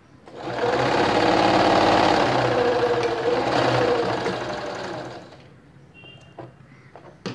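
Domestic electric sewing machine stitching a seam through fabric, running at a steady speed for about four seconds, then slowing and stopping. A few light snips of scissors trimming the threads near the end.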